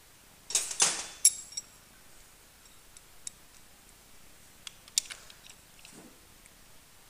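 Metal tools and engine parts clinking and clattering by hand: a burst of clanks about half a second in, then scattered light clicks and taps.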